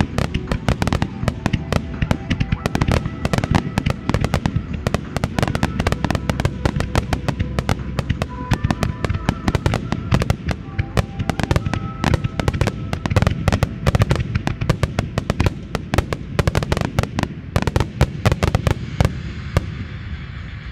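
Aerial firework shells bursting in a rapid, dense barrage over music, the sharp reports coming several a second; near the end the bursts thin out and stop, leaving the music.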